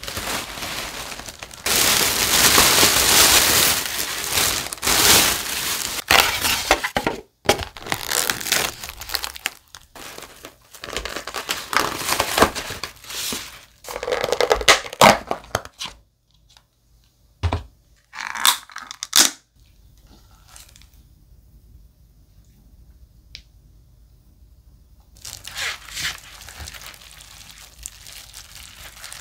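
Black plastic takeout bag rustling, crinkling and tearing as food containers are unpacked, with plastic containers and lids clicking and knocking on the table. The rustling is loud and dense through the first half, then gives way to a few separate clicks, and a short stretch of rustling comes back near the end.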